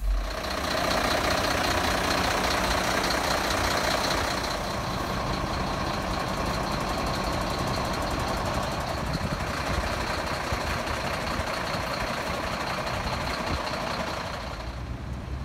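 A vehicle engine idling steadily, with a thin high steady tone over it; the level drops slightly about four seconds in.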